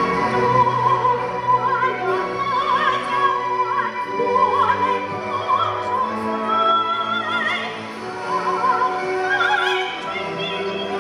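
A woman singing in a classical, operatic style with wide vibrato, amplified through a handheld microphone, over orchestral accompaniment.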